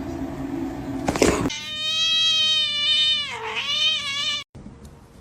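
A cat's long drawn-out meow lasting about three seconds, dipping in pitch near the end and rising again before it cuts off.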